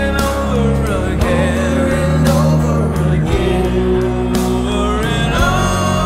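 Rock band playing: electric guitar, bass guitar and drums under a male lead vocal, in a studio mix.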